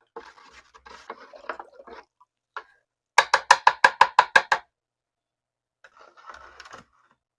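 Work on a rusty pistol's metal parts: a stretch of rubbing and scraping, then a quick run of about ten sharp clicks, then more scraping near the end.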